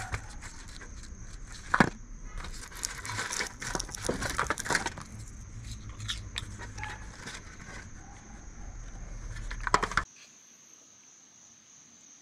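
Aluminium foil pan crinkling and clicking as it is handled, with grilled softshell crabs shifted about in it, including a few sharper clacks. About ten seconds in this stops abruptly, leaving a faint steady hiss with a thin high tone.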